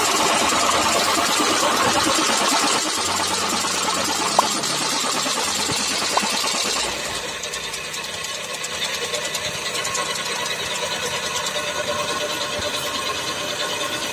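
Drill press boring through a flat steel strip: the motor running and the bit cutting with a steady grinding hiss. There are two sharp clicks in the middle, and the cutting sound drops a little about seven seconds in.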